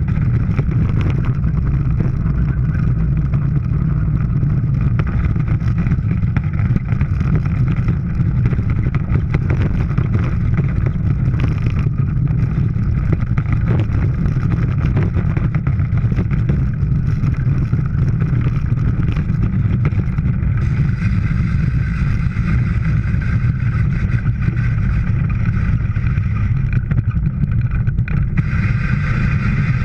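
Bobsled running down the ice track at speed, heard from inside the sled: its steel runners make a loud, steady low rumble with rattling of the sled body. A higher hiss joins in about two-thirds of the way through and grows stronger near the end.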